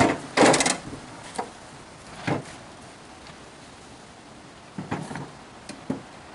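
Wooden 2x4 boards being handled and set down on a work table: a handful of separate knocks and clatters, the loudest about half a second in.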